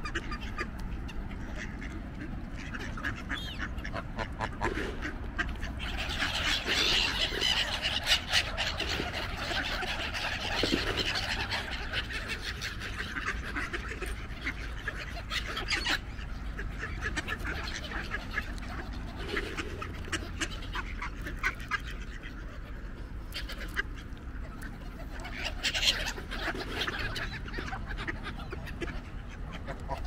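Ducks and geese quacking and honking, busiest from about six to eleven seconds in and again near the end, among many short sharp clicks, over a steady low rumble.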